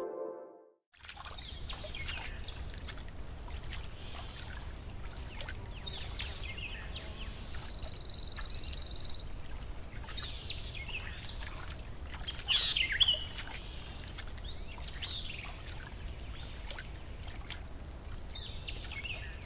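Outdoor ambience after a last music note fades out: scattered bird chirps and calls over a steady low rumble and a thin, steady high tone. A buzzy trill comes about eight seconds in, and the loudest call is near thirteen seconds.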